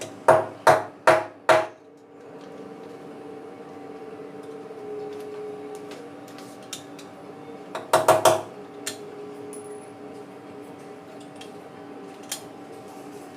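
Hammer strikes with a metallic clank: four quick blows about half a second apart, then a rapid group of three or four more about eight seconds in, with a few light clicks between.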